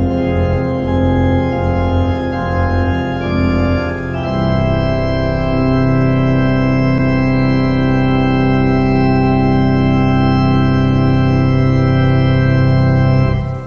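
Organ playing sustained chords: a change of chord about four seconds in, then one chord held for several seconds until it cuts off near the end.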